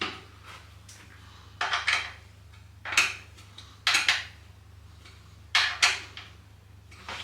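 Metal parts clinking and knocking as a mountain bike's front wheel is fitted back onto the bike, in about six short separate clatters.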